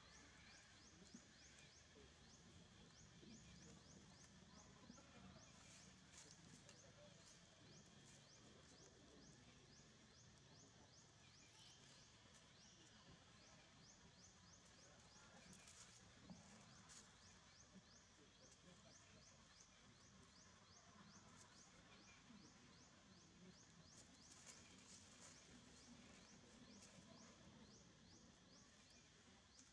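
Near silence: faint outdoor ambience with a high, even insect pulsing about four times a second, and a few soft crackles of dry leaves.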